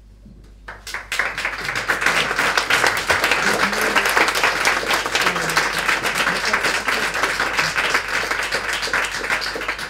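Audience applauding: many people clapping, starting about a second in and carrying on steadily.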